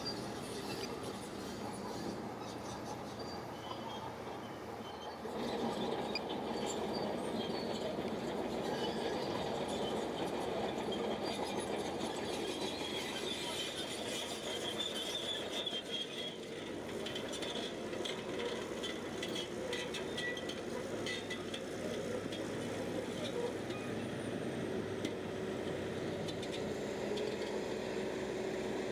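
Shantui crawler bulldozer working, its engine and running gear making a steady mechanical din that gets louder about five seconds in, with a high squeal in the middle stretch.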